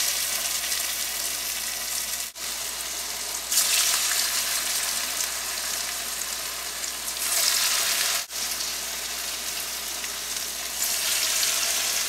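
Moong dal vada batter deep-frying in oil at medium-high heat in a frying pan: a steady sizzle that swells louder about every three to four seconds as each fresh ball of batter is dropped in.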